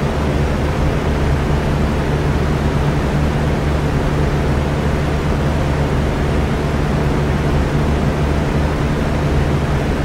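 Electric fan running steadily: an even rush of moving air over a low, constant motor hum.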